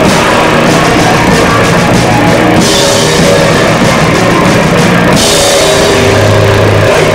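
Rock band playing live and very loud, drums and guitars close to the microphone.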